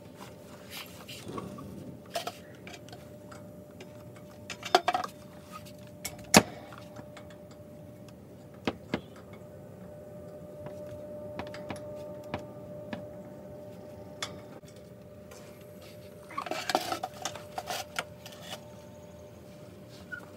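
Scattered metallic clicks and knocks of a wrench working a hydraulic hose fitting on a leveling jack, being broken loose. The loudest knocks come about five and six and a half seconds in, with a cluster of clicks near the end, over a faint steady hum.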